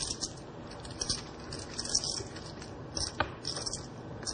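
Clay poker chips clicking against each other in short clusters, repeated every half second to a second, as a player fiddles with and riffles a stack at the table.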